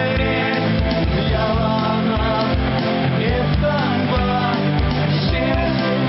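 A rock song with a steady drum beat.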